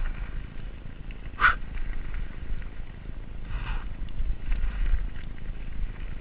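Giant Reign full-suspension mountain bike running fast down a dirt single track: a steady low rumble of wind buffeting the camera microphone and tyres on dirt and stones, with the bike rattling. A sharp clack comes about one and a half seconds in, and a brief scrape a little after halfway.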